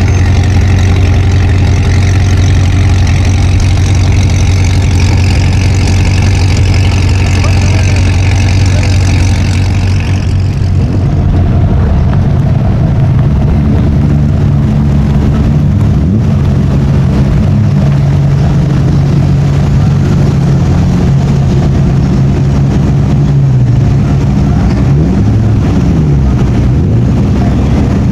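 Performance car engines idling loudly. About ten seconds in, the sound changes to a different, deeper idle. Near the end there are a couple of light throttle blips.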